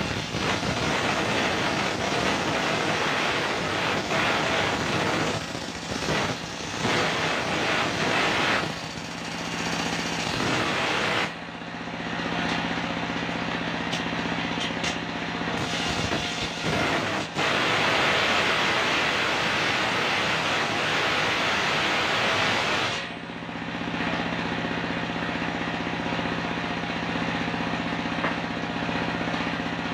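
Large sawmill circular saw ripping coconut-palm (glugu) slabs, over the steady running of its stationary engine. The cutting noise drops away briefly about 11 seconds in and again about 23 seconds in, leaving the engine and the free-spinning blade, before cutting picks up again.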